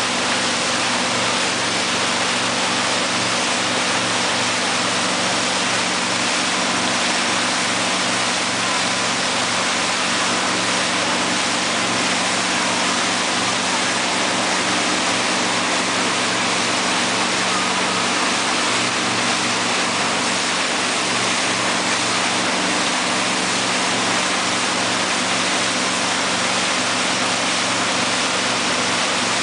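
Tow boat's inboard engine running steadily under way, its low hum under a constant rush of churning wake water and wind.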